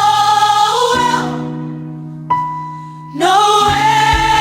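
Gospel Christmas song: a held sung note fades out about a second in, leaving sustained keyboard chords and a single clear high note. The voice comes back in near the end as the drums start up.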